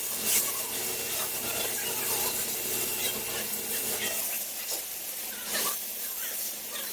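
A robotic MIG welding arc running with a steady crackling hiss and a few sharp pops. A low hum underneath it stops about four seconds in.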